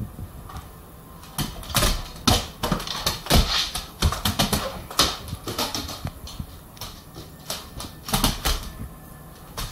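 A big dog's claws clicking and skittering on a hard plank floor in irregular flurries, with knocks of its paws as it chases a laser dot. The clicks are busiest from about one and a half to five seconds in, with another flurry near the end.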